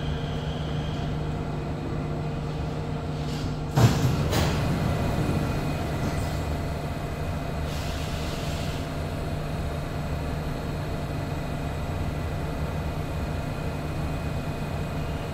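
Interior of an SMRT CT251 metro train running, a steady rumble with a constant hum. There is a sharp knock about four seconds in, the loudest moment, and a brief hiss about eight seconds in.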